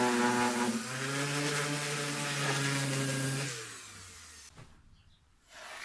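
Electric random orbital sander running on a rounded wooden workpiece, a steady motor hum, sanding the caravan roof smooth. About three and a half seconds in it is switched off and the hum falls in pitch as the motor winds down and fades out.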